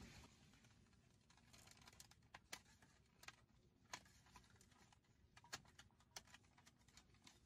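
Thin clear plastic sashimi pack being opened and handled: faint, irregular sharp crackles and clicks of the plastic lid and tray.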